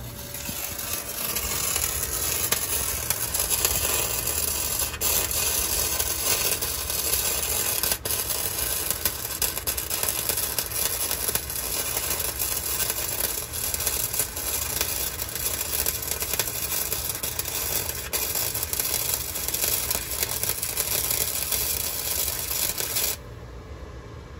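Flux-core wire-feed welder laying a continuous bead: the arc's steady crackling sizzle, which stops abruptly near the end.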